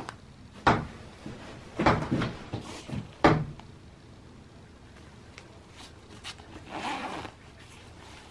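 Handling noise of a textile motorcycle jacket: several sharp knocks in the first few seconds, then a softer rustle about seven seconds in.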